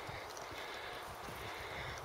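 Footsteps of a person walking uphill over rocky, grassy ground: soft, regular thuds under a steady hiss.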